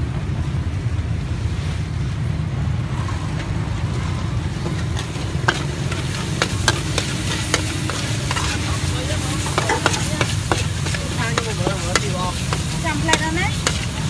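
Metal spatula scraping and clinking against a steel wok as chillies and paste are stir-fried, with the food sizzling. The scraping starts about five seconds in, over a steady low rumble.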